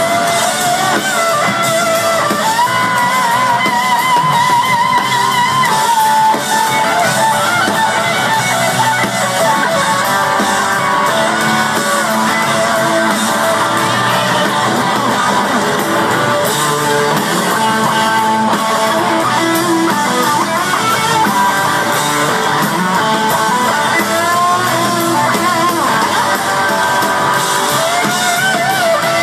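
Live rock band playing loudly through a concert PA, guitars and drums together; about three seconds in, a lead line holds a long wavering note.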